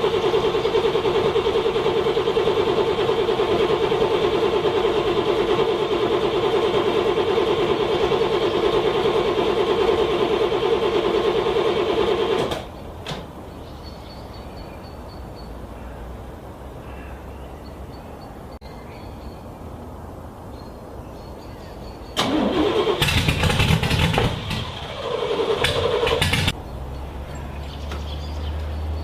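Car starter cranking a cold engine for about twelve seconds in freezing weather without it catching, then cutting off. Near the end come two short, loud bursts.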